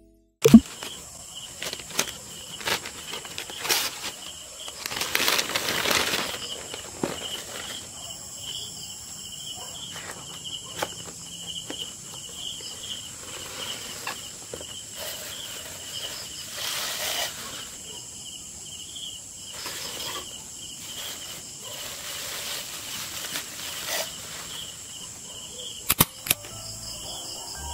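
Crickets chirping in an even, pulsing trill while a box of glasses is unpacked, with rustling of tissue paper and wrapping. There is a sharp loud knock just after the start and two sharp clicks near the end.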